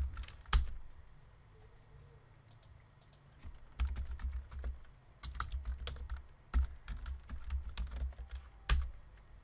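Typing on a computer keyboard. A few keystrokes come at the start, then a pause of about three seconds, then quick runs of keystrokes with a few louder single key strikes among them.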